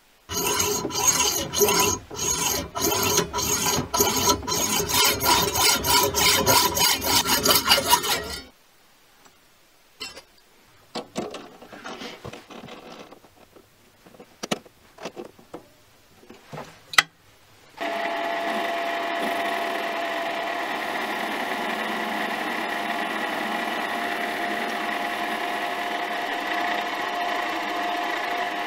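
A hacksaw cutting through a brass rod clamped in a vise, in fast back-and-forth strokes that stop about eight seconds in. Then scattered clicks and knocks as the brass piece is fitted into a three-jaw lathe chuck, and from about eighteen seconds a mini lathe runs steadily with a whine while facing the end of the brass rod.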